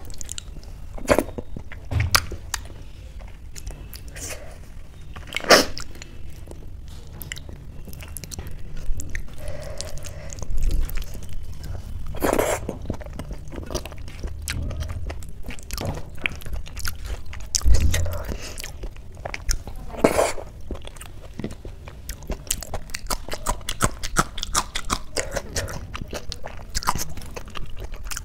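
Close-up mouth sounds of someone eating soft mashed boiled rice and potato by hand: wet chewing and many small lip-smack clicks, a few of them louder, several seconds apart. Fingers squish and mix the rice on a steel plate.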